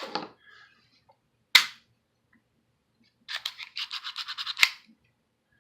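Plastic airsoft speed loader being worked by hand: a sharp snap about a second and a half in, then a quick run of rattling clicks, about eight a second, ending in another sharp snap as the spring-loaded plunger is pumped.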